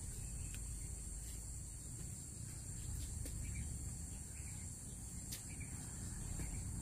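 Insects chirring in a steady, unbroken high drone, over a low rumble, with a few faint sharp clicks.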